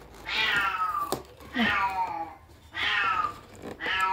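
Domestic cat meowing repeatedly, about four meows a little over a second apart, each one falling in pitch.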